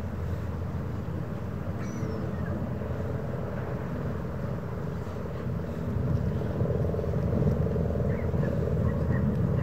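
Steady low outdoor rumble that grows a little louder after about six seconds, with a few faint high chirps over it.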